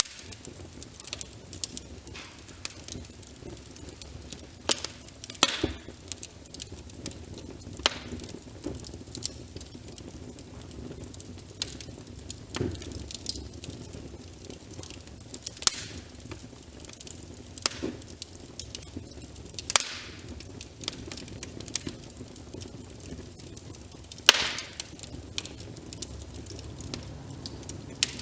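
Wood fire crackling with sharp, irregular pops, a few much louder than the rest, over the steady hiss of rain on a window.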